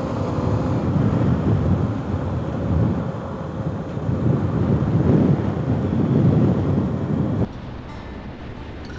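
Adventure motorcycle riding on a gravel road: heavy wind buffeting on the microphone over the engine and the tyres on gravel. About seven and a half seconds in it drops suddenly to a quieter, steadier engine and road noise.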